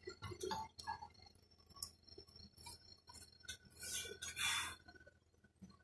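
Hooped embroidery fabric being handled: scattered light clicks and clinks, and a short rustle of cloth about four seconds in.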